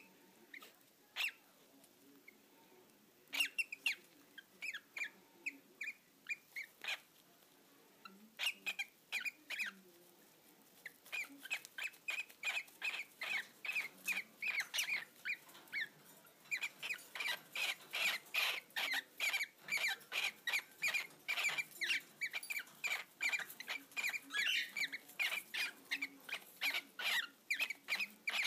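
Cockatiels mating, giving short, squeaky peeps. The peeps come scattered at first, then turn into a fast, steady run of about three or four a second from roughly the middle onward.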